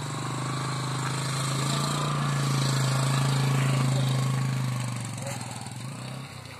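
Motorcycle engine running at a steady low speed, growing louder to a peak about three to four seconds in, then fading.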